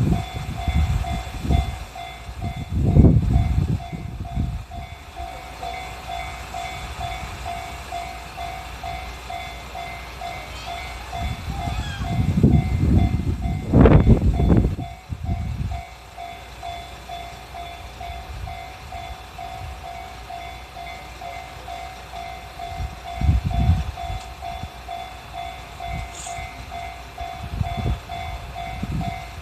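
Japanese railway level crossing warning bell ringing in a steady repeating pattern as a diesel railcar moves through, with low rumbling and thuds from the train. The thuds are loudest about halfway through.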